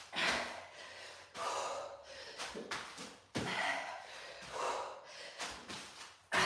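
A woman gasping and breathing hard from exertion, with loud breaths coming about once a second. Between the breaths are a few short knocks as her hands and feet hit the floor during burpees.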